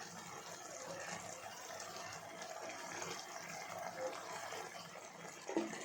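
Prawn curry masala sizzling in the cooking pan: a steady, faint hiss.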